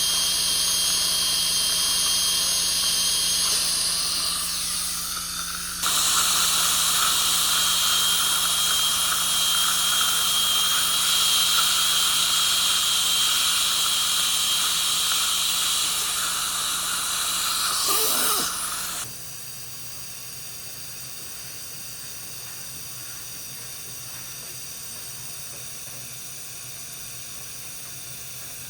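High-speed dental drill whining with a spray hiss. It winds down about four seconds in, starts again sharply two seconds later, and stops with a brief pitch sweep about two-thirds of the way through, leaving a quieter steady hiss.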